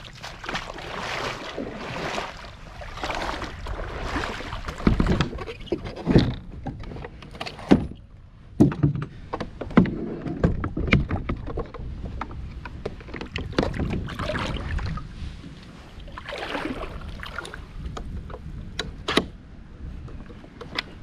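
Kayak on the water: recurring swishes of water every second or two, with a run of sharp knocks and thumps in the middle.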